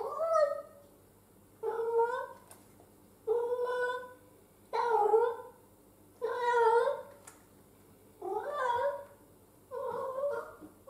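A domestic cat meowing over and over, seven drawn-out meows about every second and a half.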